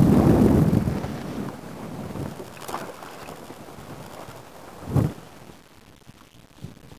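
Wind buffeting the microphone on an open boat, strong in the first second and then dying down, with a single knock about five seconds in.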